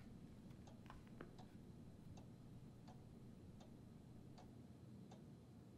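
Near silence: faint room tone with a soft tick repeating roughly every three quarters of a second, like a clock.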